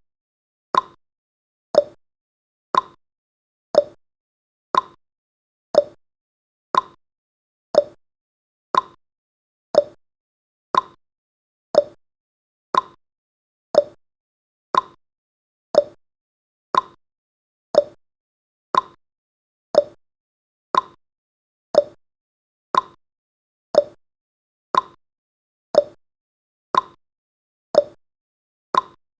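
Countdown timer's ticking sound effect: one short, sharp tick a second, alternating between a higher and a lower tick like a clock's tick-tock.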